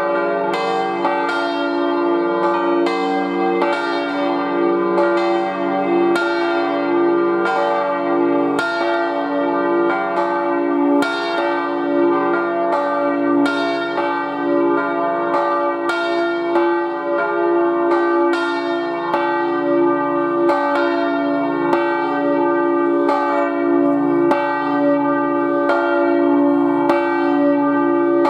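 Full peal of five swinging church bells cast by Rüetschi of Aarau, tuned D, F, G, B-flat and C, ringing together to call to Sunday service. Strikes land about once or twice a second in an irregular overlapping stream over a steady hum.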